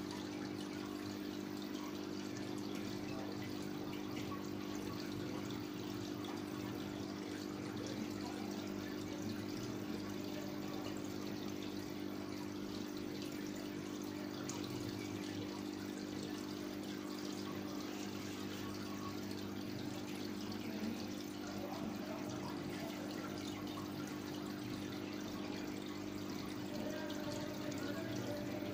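Aquarium filter pump running: a steady low hum under water splashing and trickling back into the tank.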